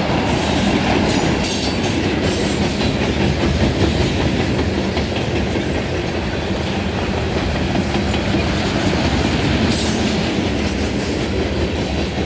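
Loaded freight cars, gondolas, tank cars and covered hoppers, rolling past close by, their steel wheels running steadily on the rails. The sound eases off slightly near the end as the last car goes by.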